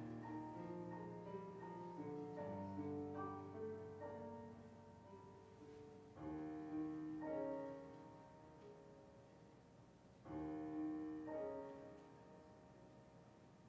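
Slow, quiet piano music of held chords and a gentle melody. Fresh chords are struck about six and ten seconds in and left to ring and fade.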